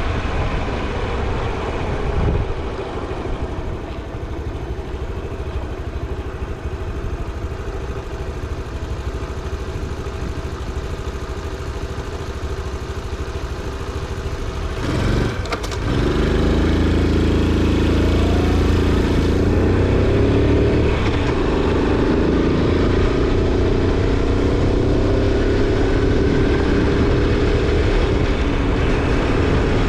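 Honda Super Cub 90's single-cylinder four-stroke engine running while riding, with low wind rush. About halfway through, the engine note dips briefly, then comes back louder and climbs slowly in pitch as the bike accelerates.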